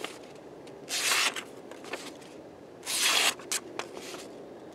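Double-edged AUS-8 steel dagger blade slicing into a sheet of A4 paper in two short strokes, about a second in and again around three seconds in. The thick, chisel-like edge tears the paper in places rather than cutting cleanly.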